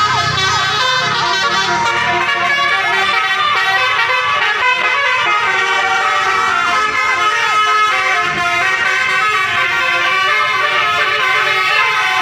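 Bus telolet horn playing a fast multi-tone tune, the notes changing several times a second without a break.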